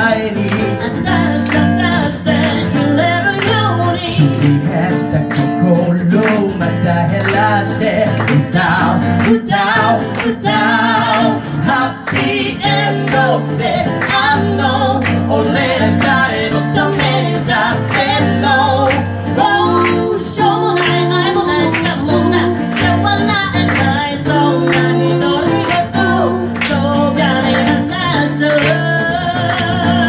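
A woman singing with acoustic guitar accompaniment, the guitar strummed in a steady rhythm under her voice.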